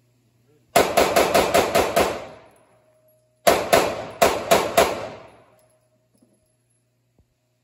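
Semi-automatic pistol fired rapidly in an indoor range: two quick strings of about six or seven shots each, roughly five a second, with a pause of about a second and a half between, each shot echoing off the range walls.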